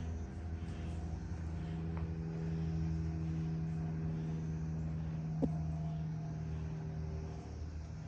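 A steady low machine hum, with a single sharp click about five and a half seconds in.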